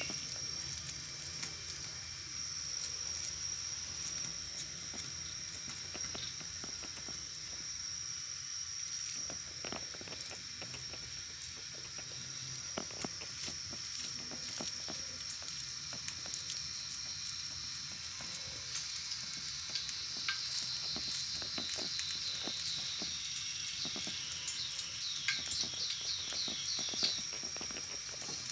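Hands pressing and patting raw ground meat into patties on a plate, with many small wet clicks and squishes, over a steady high hiss.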